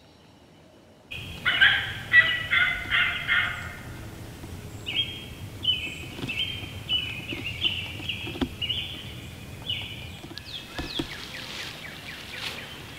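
Turkey calls starting abruptly about a second in: a loud rapid cluster of calls, then a long even series of about a dozen yelp-like notes, with a few short falling notes near the end.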